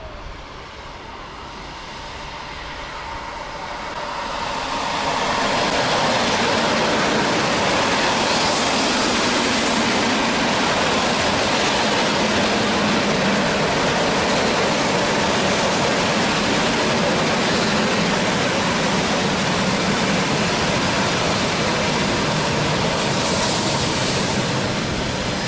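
ET2M electric commuter train passing close by: the noise of its wheels on the rails swells over the first five seconds as it draws near, then holds as a steady, loud rush while the cars go past.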